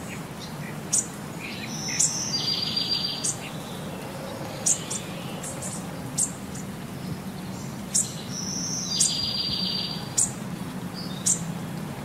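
Birds calling outdoors: short high chirps about once a second, and twice a longer high call that ends in a rapid trill, over a steady low hum.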